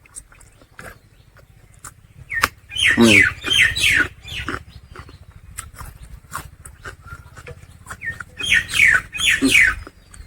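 Soft smacking clicks of someone eating, broken twice by a run of three or four quick, loud falling calls from an animal, one run about three seconds in and another near the end.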